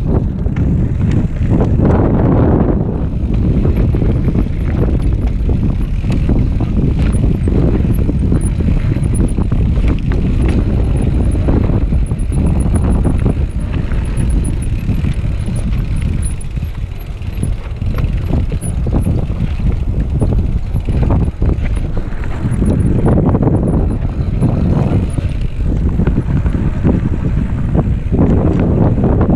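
Mountain bike riding: wind rumbling on the action camera's microphone, with a steady stream of rattles and knocks from the bike going over the ground.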